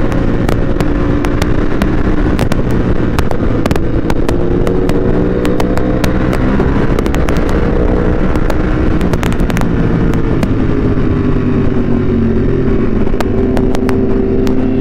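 Ducati superbike with a Termignoni exhaust running at a steady cruise from the rider's seat, its pitch slowly sagging and rising again, with frequent sharp pops and crackles from the exhaust. Wind rushes over the microphone.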